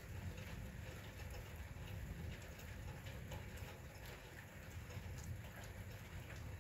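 Rain falling steadily, with many small drops tapping close by over a low steady rumble.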